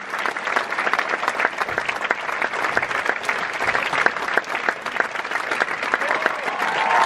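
Large theatre audience applauding at a curtain call: dense, sustained clapping from many hands.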